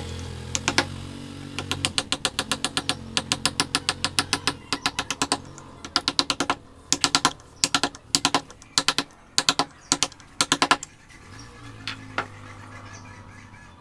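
Quick sharp taps of a mallet driving a wood-carving chisel into wood, in runs of several taps a second with short pauses, stopping about eleven seconds in. A low steady hum underneath.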